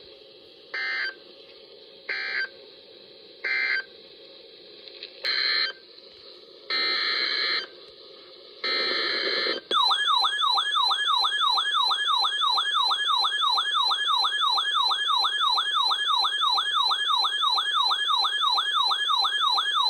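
Emergency Alert System data bursts: a string of short screechy digital tone bursts, the last two longer, with faint hiss between them. About ten seconds in, a loud warbling alert tone starts, sweeping up and down about three times a second, signalling the start of a new warning.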